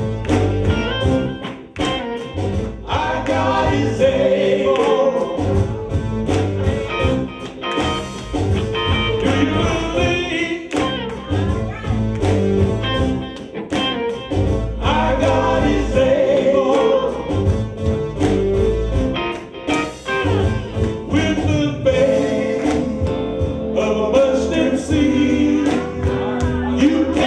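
A gospel song with singing over a full band: bass, guitar and drums.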